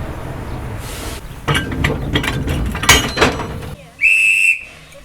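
Steam locomotive and train: a low rumble, then a run of metallic clanks and knocks, then a short, high steam-whistle toot about four seconds in.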